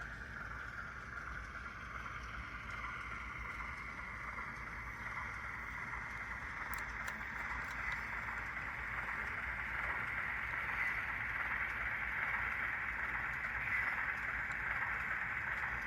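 Bachmann Mavis model diesel shunter running under DCC, its sound decoder playing a diesel engine sound through a small speaker along with motor and wheel noise. It grows steadily louder and cuts off suddenly at the end.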